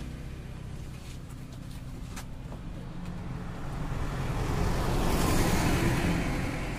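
A road vehicle going past: engine and tyre noise that builds to a peak about five seconds in and then fades, with a few faint clicks a second or two in.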